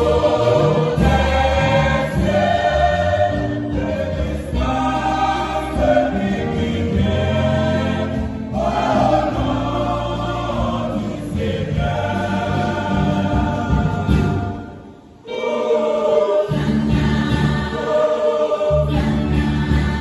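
Mixed choir of men and women singing a hymn in several parts, sustained sung phrases with a short pause about fifteen seconds in.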